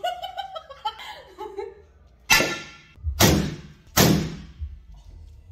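Hammer blows smashing objects: three loud crashing impacts in quick succession, starting a little over two seconds in, each ringing out briefly.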